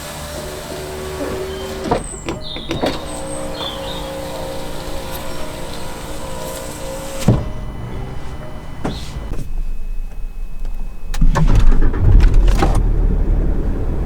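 Land Rover Discovery 4 electric door window motor running as the glass moves, with a short break about two seconds in, stopping with a knock about seven seconds in. A loud low rumble follows near the end.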